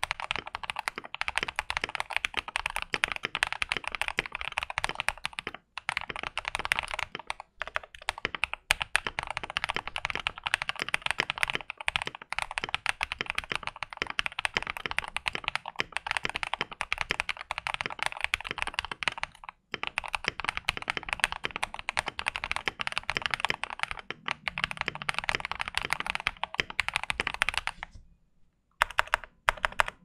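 Fast, continuous typing on a Thunderobot K104 mechanical keyboard with Feker Matcha switches, modded with lower case foam, two layers of tape mod and tuned, lubed stabilizers. Near the end the typing stops for a moment, then a few scattered keystrokes follow.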